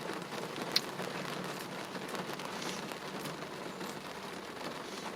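Steady hiss of rain falling, with a few faint, scattered clicks.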